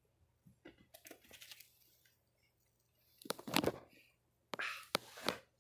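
Crackling, rustling noises in three bursts, the loudest about three and a half seconds in: a pet monkey's hands picking and rubbing through a person's hair close to the microphone.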